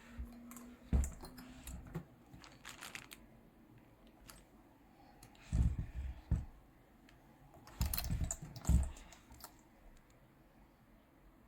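Handling noises: scattered sharp clicks and light knocks, with two short bursts of heavier knocking about halfway through and again a couple of seconds later. No motor is running.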